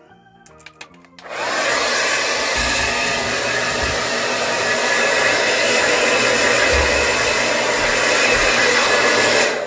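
Handheld hair dryer switched on about a second in, blowing steadily at full speed, with a few low buffeting thumps, then switched off just before the end.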